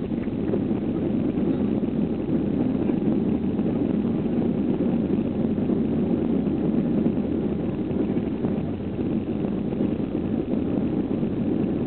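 Steady rumble of a Boeing airliner's jet engines and rushing airflow, heard inside the passenger cabin on the approach to land.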